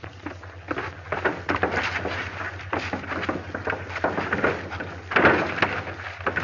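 An irregular series of sharp bangs and knocks, the loudest and longest about five seconds in, over the steady low hum of an old film soundtrack.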